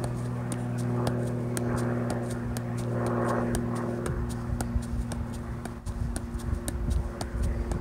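Soccer ball being juggled: light taps off the foot in a quick, even rhythm of about three a second, over a steady low hum.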